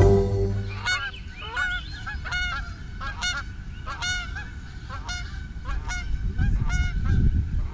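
A flock of geese flying over, honking: many short calls overlapping, a few each second, over a low rumble that swells near the end.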